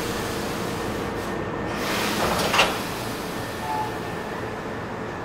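Steady hum of a Hankyu 3300 series electric train. About two seconds in, a rush of air builds and ends in a sharp clunk, the loudest sound. A short, faint two-note tone follows a second later.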